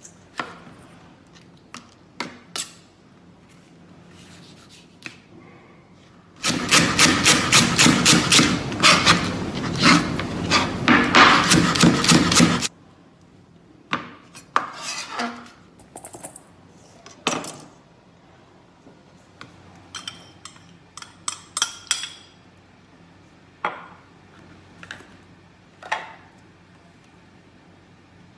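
Food preparation in a stainless steel bowl: scattered knocks, clicks and scrapes of utensils and hands. About six seconds in comes a loud burst of fast, rhythmic metal scraping against the bowl, lasting about six seconds and stopping suddenly.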